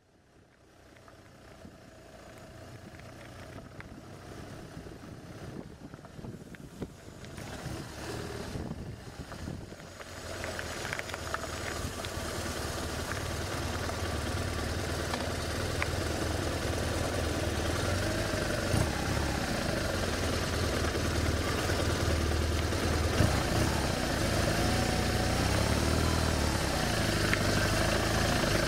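BMW touring motorcycle's boxer-twin engine running, growing louder over the first several seconds as the bike comes close, then idling steadily.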